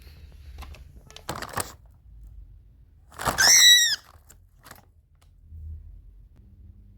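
Cockatiel giving one loud call, under a second long, that arches up and then down in pitch, a little after a short burst of rustling and scratching.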